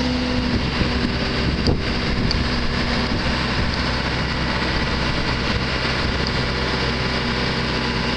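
Marine travel hoist's engine running steadily under load as the hoist lifts a sailing yacht in its slings, a low, even drone.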